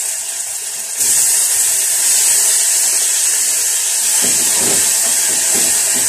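Chopped tomatoes sizzling loudly in hot oil with frying onions as they go into the pan. The sizzle grows louder about a second in.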